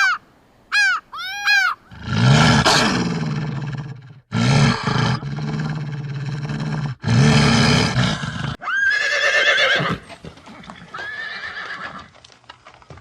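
A horse neighing in one long, loud call of three joined parts, after a few short caws at the start and followed by a shorter, higher animal call.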